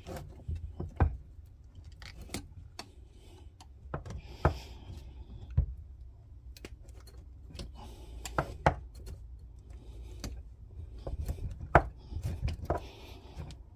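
Flat-bladed screwdriver prying at an old rubber gear-linkage bush in its metal eye, to lever the bush out: irregular clicks, knocks and scrapes of the steel blade against the bush and housing.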